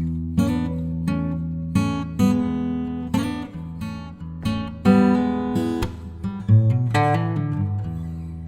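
Background music: acoustic guitar strummed in chords, each strum ringing on, roughly one or two strums a second.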